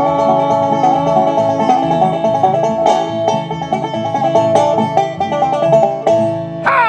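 Live bluegrass band playing the closing instrumental bars: banjo roll, acoustic guitar strumming and upright bass thumping a steady beat. The bass and rhythm stop about six seconds in, and a sound sliding down in pitch follows near the end.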